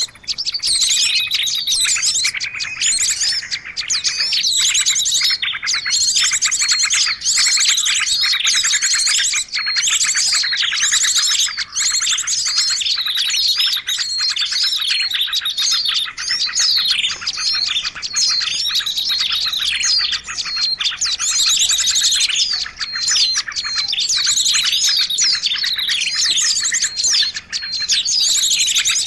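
Dense, unbroken chorus of many small birds chirping and trilling rapidly at high pitch: a bird-lure recording (suara pikat) of small forest birds, made to draw small birds in.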